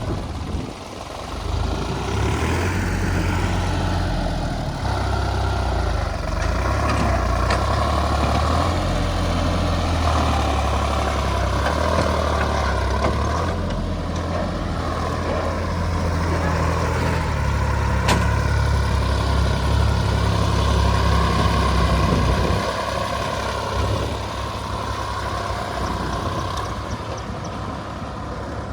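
Heavy diesel engine running continuously, its load and speed shifting up and down.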